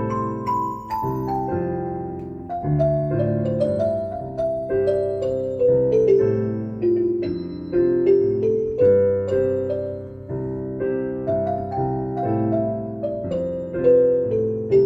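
Piano playing an instrumental passage of a slow ballad: a single-note melody that steps down and climbs again over held chords.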